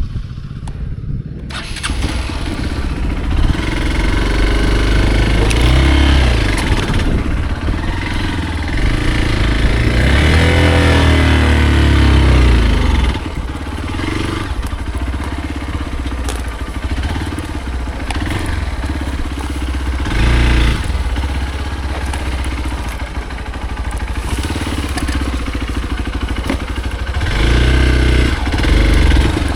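Hero Xpulse single-cylinder motorcycle engine running under load off-road, with the throttle opened and closed. It builds up over the first seconds, swells and falls in pitch around the middle, eases off a little past halfway, then gives short surges of throttle near the end.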